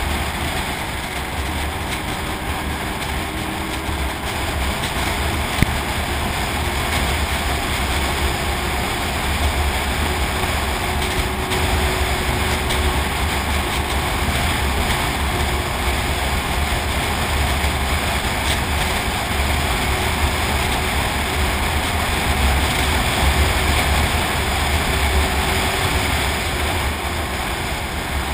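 Snowmobile running steadily at trail speed: engine and track noise under a constant rush, with a strong low rumble. One brief click about five and a half seconds in.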